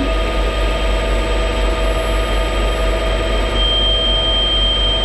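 CNC lathe turning the face of a spinning metal disc: a steady machine noise of spindle and cut. A thin, steady high tone joins about three and a half seconds in.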